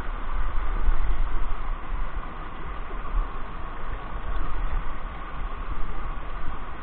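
Small rocky mountain stream running steadily over stones, a continuous rushing of water, with an uneven low rumble underneath.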